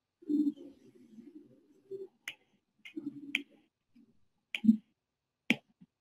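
Scattered sharp clicks, about six from a couple of seconds in, with faint low mumbling between them.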